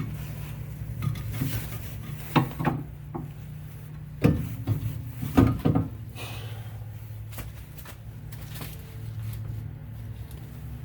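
Several sharp clunks and knocks of metal parts being handled as a car's rear strut is worked into place, the loudest ones a few seconds in, over a steady low hum.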